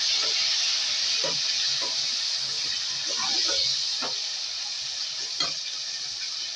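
Chopped tomatoes sizzling in hot oil with fried onions in a large metal wok, with a metal spatula scraping and knocking against the pan a few times as they are stirred. The sizzle gradually quietens.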